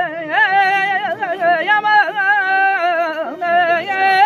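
A man singing in an ornamented folk style, holding long notes with a wavering, trilled pitch and sliding between them.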